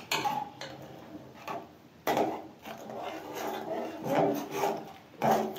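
Slotted spatula stirring soup in an aluminium pot, scraping and rubbing against the pot's bottom and sides in uneven strokes that grow louder from about two seconds in.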